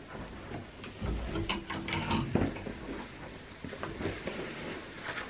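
Handling noises of a garment being put on: rustling with a busy run of small clicks and knocks, most of them about one to two and a half seconds in.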